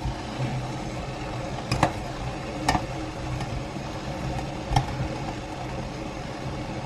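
A steady hum and hiss, with three short light knocks at about two, three and five seconds in. The knocks come as spätzle dough is pushed by hand through a perforated metal spätzle board resting on a pot of boiling water.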